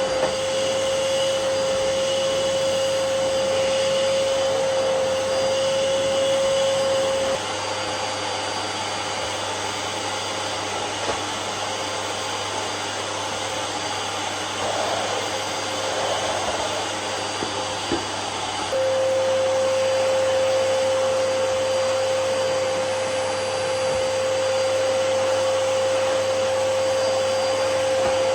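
Vacuum cleaner running steadily, with a steady whine that is louder for the first several seconds and again for the last third, and quieter in between.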